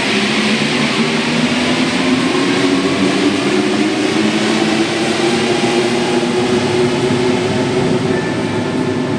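A Paris Métro MP05 rubber-tyred train running between stations: a steady rolling noise with a low, even motor hum.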